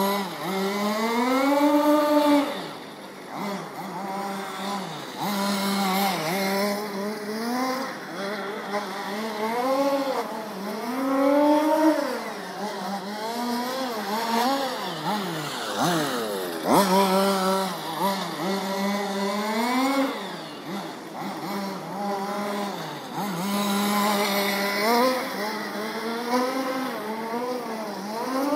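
Small two-stroke petrol engine of a 1/5-scale MCD X4 radio-controlled rally car revving up and dropping back again and again, every second or two, as the throttle is worked through the corners. There are a few short stretches of steady speed.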